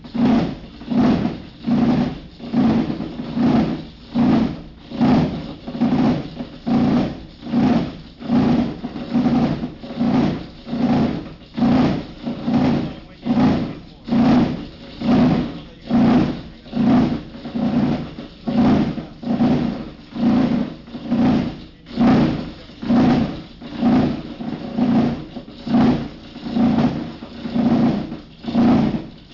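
Plastics granulator running while grinding plastic film, its sound swelling and fading in a steady pulse a little over once a second.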